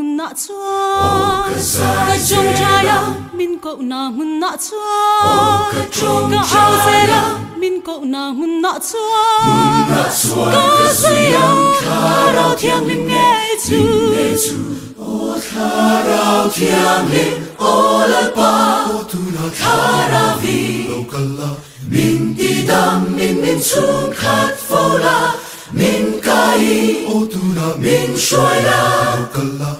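A choir singing a church song in harmony, in held phrases with short breaks between them.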